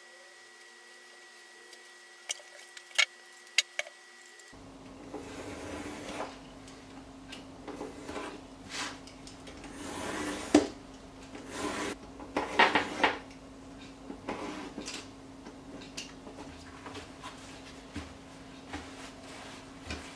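Hands working paper and board on a cutting mat: a few sharp light taps, then irregular scraping and rustling strokes as card is cut along a steel ruler, the strokes loudest about halfway through.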